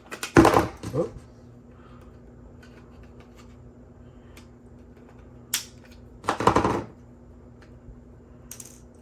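3D-printed PLA support material being snapped and peeled off a printed helmet part: two crackling bursts of rapid brittle clicks, about half a second in and again around six and a half seconds, with a sharp snap just before the second and small ticks in between.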